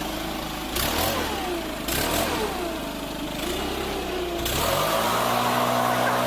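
An engine running with a steady low hum. Its pitch climbs about four and a half seconds in, then holds steady and louder, as when revved.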